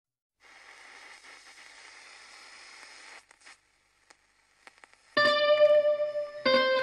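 A faint hiss for the first three seconds, then guitar music starts suddenly about five seconds in, with plucked notes ringing on and the chord changing near the end.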